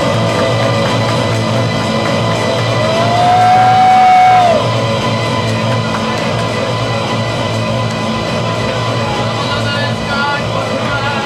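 Music from a DJ set played over a club sound system, dense and continuous. About three seconds in, one long held note slides up at its start and down at its end, the loudest moment, and a few short higher notes come in near the end.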